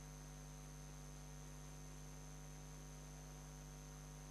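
Very quiet, steady electrical hum from the recording chain: a low buzz with overtones, a thin high whine and faint hiss, and nothing else.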